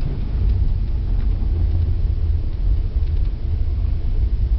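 Steady low engine and road rumble inside the cab of a 1993 Dakota pickup driving along, its engine running on wood gas from a bed-mounted gasifier.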